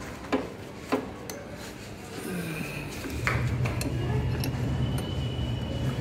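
Metal hand tool clinking against the engine-sprocket nut and primary chain drive of a cast-iron 350 cc Royal Enfield engine: a few sharp, separate clinks. About halfway through, a steady low hum comes in.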